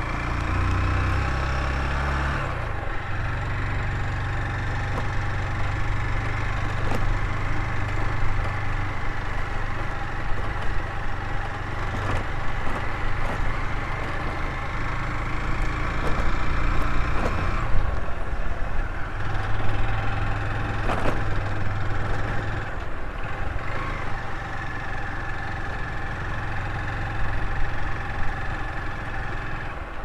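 Motorcycle engine running as the bike is ridden along an unpaved road. The engine note shifts a few times, and there are a few short sharp knocks from the rough surface.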